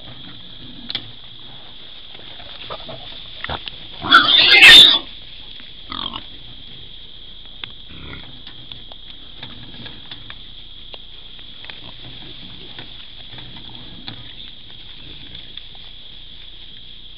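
Feral pig squealing once, loud and harsh, for about a second, about four seconds in, over a steady high drone of night insects.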